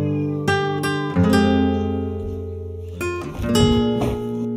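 Background music: strummed and plucked acoustic guitar chords, each struck note ringing and fading.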